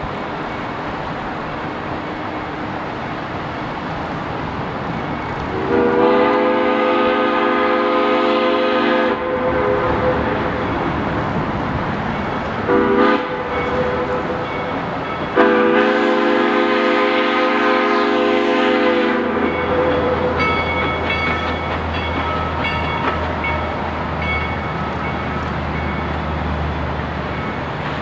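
Steam whistle of a narrow-gauge 2-6-2 steam locomotive sounding three blasts, long, short, long, each a chord of several tones.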